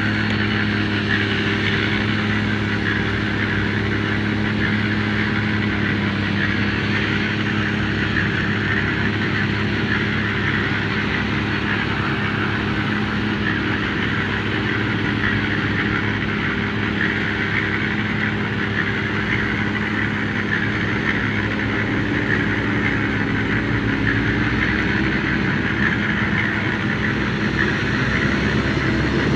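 Diesel engine of a SEM 917 motor grader running steadily under load as it grades soil with its blade down.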